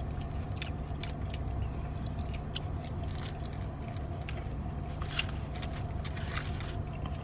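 Mouth sounds of eating fried chicken: chewing and crunching with scattered clicks and smacks, over the steady low hum of the car's engine or ventilation running.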